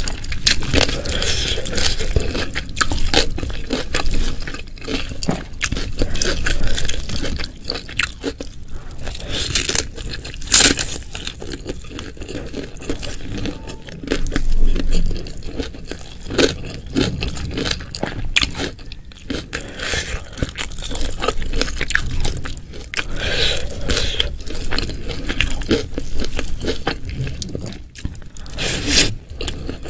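Close-miked eating sounds: continuous chewing with many sharp, crunchy bites, a few louder crunches about ten seconds in and near the end.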